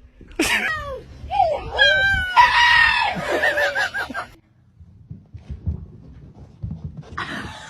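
An animal's loud, pitched calls: a sharp falling cry, a few short bending calls, then one longer call that wavers at its end. A short noisy burst follows near the end.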